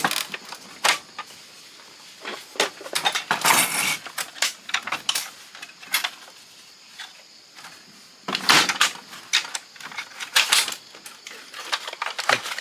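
Irregular clicking, clattering and scraping of plastic and metal parts of an old Canon fax machine being pulled apart and handled, coming in several short flurries.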